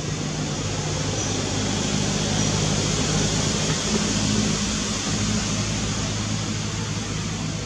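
A steady low motor hum under a broad hiss, swelling slightly partway through.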